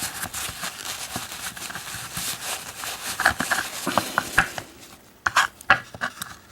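Small metal parts of a partly disassembled American 1100 padlock being handled, their insides slimy with grease: steady scraping and rubbing at first, then several sharp separate clicks from about five seconds in.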